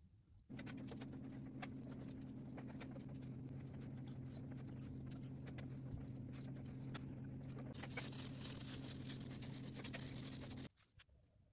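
Steady low machine hum that starts and stops abruptly, with many small clicks and scrapes of a carving blade cutting walnut, and a louder stretch of hissing scraping near the end.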